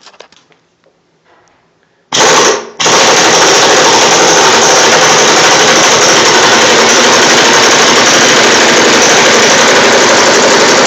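500 ft-lb pneumatic impact wrench hammering on a seized pipe nipple on a water heater's top port, trying to break it loose. It starts about two seconds in with a short burst, stops briefly, then hammers continuously and loudly.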